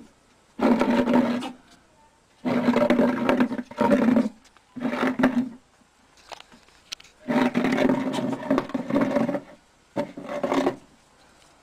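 A pet animal growling in five separate calls of one to two seconds each, with short pauses between them.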